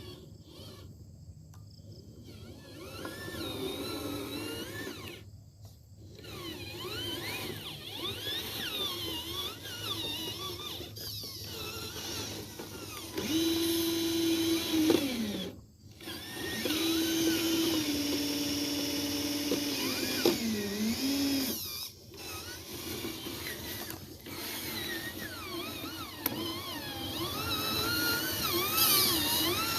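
Small electric motors of radio-controlled construction models whining, their pitch sweeping up and down as the machines move. Midway a louder steady whine holds for a few seconds at a time, then drops in pitch as the motor comes off or under load.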